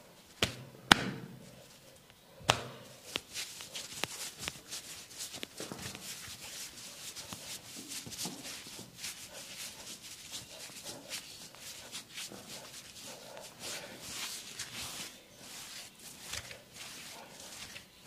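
Hands-on massage: three sharp slaps or taps on the body in the first three seconds, the loudest about a second in, followed by a steady run of quick, light clicks and rustles.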